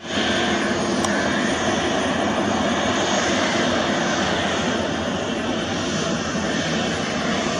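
Jet engines of a Boeing 737 airliner running steadily as it rolls along the runway, a constant dense jet noise that fades in at the very start.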